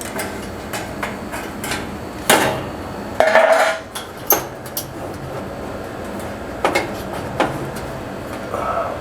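Sheet-metal dryer parts knocking and clanking as they are handled and fitted back together. A sharp clank comes a little over two seconds in, then a short metallic clatter and scrape, then scattered single knocks and clicks.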